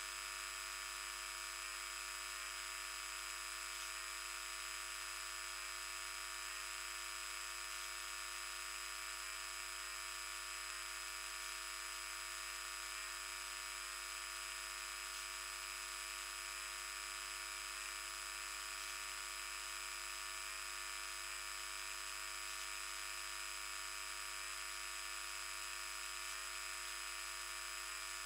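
Electrical grid mains voltage played as sound through a high-pass filter, leaving only the higher-order harmonics of the 50 Hz supply: a steady, unchanging high buzzy whine of many stacked tones over a hiss. The harmonic noise comes from some piece of equipment connected to the grid at the time.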